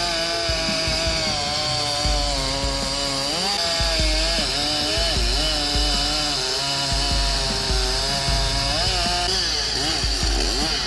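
Husqvarna 395 XP 94cc two-stroke chainsaw cutting through a large log. Its engine pitch dips and rises again and again as it works through the cut.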